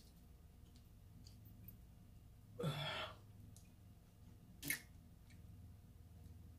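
Quiet crab eating: a short breathy sigh about two and a half seconds in, then a single sharp click of king crab shell being worked open near the middle.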